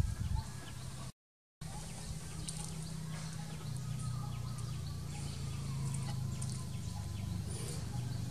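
Outdoor background: a steady low hum that grows louder toward the end, with scattered short high chirps and small ticks. The sound cuts out completely for about half a second a little after the start.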